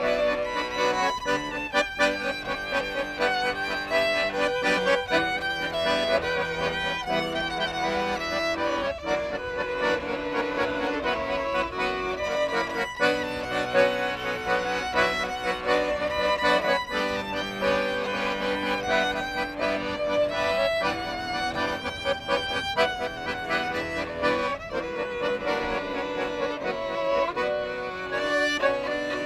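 A violin and a piano accordion playing a tune together as a duo, the accordion keeping up a steady beat under the violin's melody.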